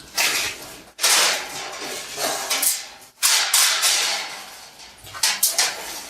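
Plasma-cut steel slugs being knocked and worked loose from holes in a steel plate: a run of sharp metal knocks and scrapes, spaced about a second apart, then three in quick succession near the end.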